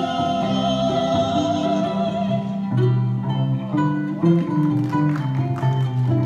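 Small acoustic band playing live with upright bass, ukulele and lap steel guitar. A woman's voice holds a sung note for about the first two and a half seconds, then the instruments carry on alone with plucked and strummed notes over a moving bass line.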